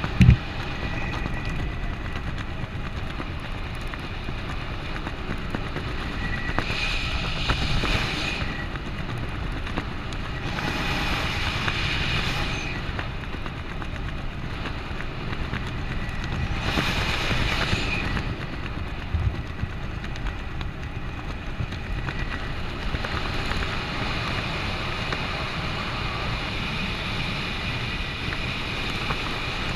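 Air rushing past the microphone of a skydiver descending under an open parachute: a steady wind noise that swells in several louder gusts every few seconds. A single sharp knock comes right at the start.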